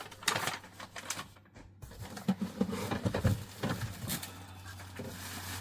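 Rustling and light clicks and knocks of packaging and parts being handled as a boxed cordless vacuum is unpacked, over a faint steady low hum.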